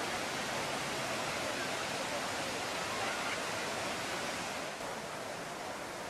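Man-made waterfall pouring off a road bridge into a canal: a steady rush of falling water.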